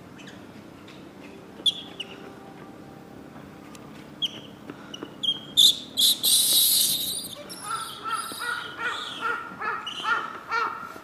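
Baby Japanese macaque screaming in fear: a few short squeaks, then a loud harsh shriek about five and a half seconds in, followed by a string of rapid repeated screams, about three a second, that stops near the end.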